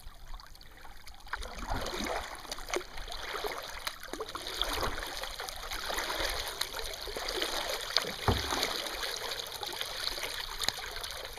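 Kayak paddle strokes: water splashing and trickling off the blade, with scattered sharper splashes and a louder splash or knock a few seconds before the end.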